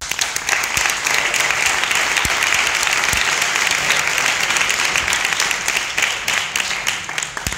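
Audience applauding, a dense patter of many hands that starts at once and dies away near the end.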